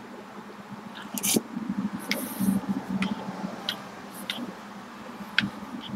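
Someone eating thick soup: a spoon clicks and scrapes against the bowl half a dozen times at uneven intervals, with soft slurping and chewing in between.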